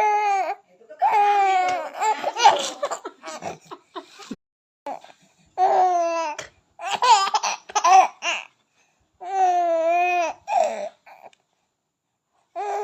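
Baby laughing in high-pitched, drawn-out bursts of about a second each, with short gaps between them and a pause of about a second near the end.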